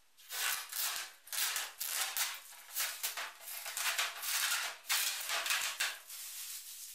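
Protective plastic film being peeled off a twin-wall polycarbonate sheet, crackling and rustling in a series of pulls.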